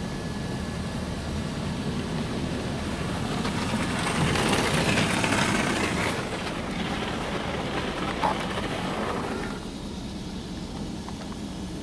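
Ryko SoftGloss Maxx automatic car wash spraying tri-foam over the car, heard from inside the cabin: a steady hiss of spray over the machine's running noise. It swells louder about four seconds in as the spray passes over, then eases off near the end.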